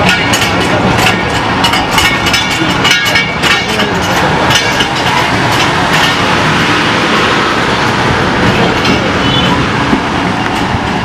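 Pakistan Railways passenger coaches rolling slowly past at close range as the train departs. There is a steady rumble of wheels on the track, with sharp clicks and clanks that come thickest in the first few seconds.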